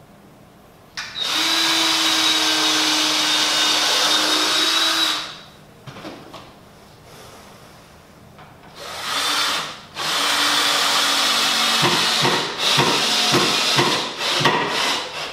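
Cordless drill driving screws into the wooden parts of an Adirondack chair: one steady run of about four seconds, a short burst, then another run that breaks into several quick stop-start pulses near the end.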